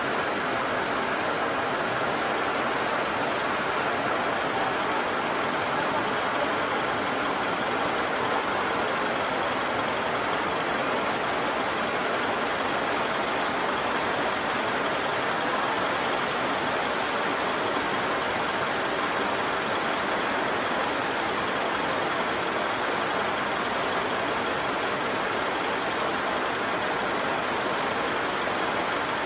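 Heavy rain over a wide river: a steady, even rushing hiss, with a low boat-engine rumble underneath.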